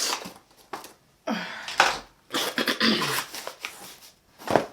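Several short bursts of a woman's voice making non-word sounds, some falling in pitch, with a sharp noisy burst near the end.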